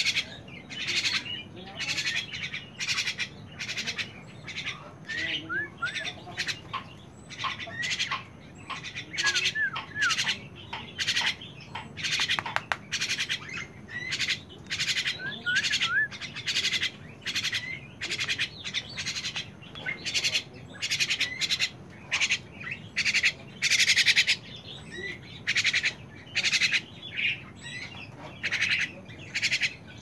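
Mynas calling: harsh, rasping squawks repeated in quick succession, with a few short whistled notes mixed in.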